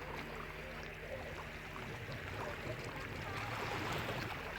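Wadden Sea tidal-flat ambience as the tide comes in: a steady wash of water, with many short bird calls scattered through it.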